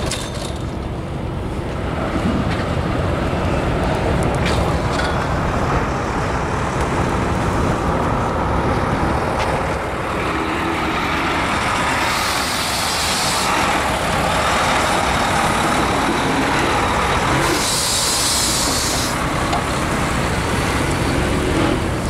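Diesel semi truck running as it drives past and pulls away through a gate. Air brakes give two short hisses, about twelve seconds in and again about eighteen seconds in.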